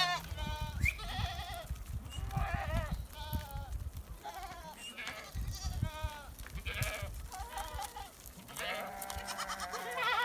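A flock bleating: many short, wavering bleats overlap one after another, several animals calling at once. Low thumps and rumble sit under the calls for the first half or so.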